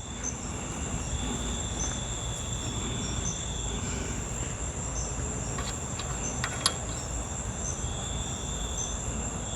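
Insects, crickets or katydids, chirping steadily: a continuous high whine with short chirps repeating about twice a second, over a low steady background rumble. A few faint small clicks come about halfway through.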